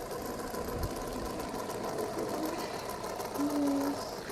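Small metal two-arm fidget spinner spinning on its centre bearing, a steady fine whir with a constant tone. A short low hum comes in about three and a half seconds in.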